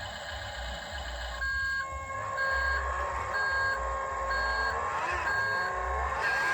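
Electronic reversing beeper of an RC construction vehicle's sound unit, starting about one and a half seconds in and repeating about once a second over a steady hum and low pulsing rumble.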